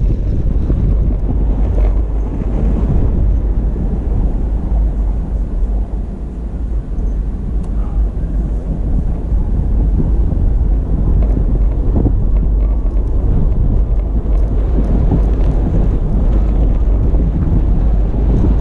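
Toyota FJ Cruiser driving on a snow-covered trail: a steady low rumble of engine and tyres with wind buffeting the microphone, and a single knock about twelve seconds in.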